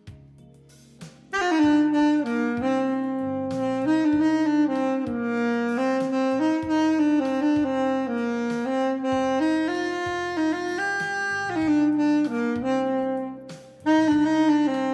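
Saxophone playing a slow melody through effects over a backing track with a pulsing bass line. The saxophone comes in after a short rest about a second in and breaks off briefly near the end.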